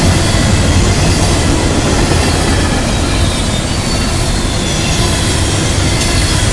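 Double-stack intermodal well cars rolling past at close range: a loud, steady rumble of steel wheels on the rails, with a faint thin high wheel squeal over it.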